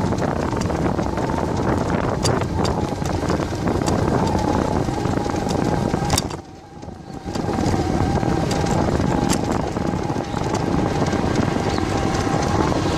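Wind rushing over the microphone of a camera riding along on a moving bicycle, with a steady whine and scattered sharp clicks and rattles. The rushing dips for about a second midway, then returns.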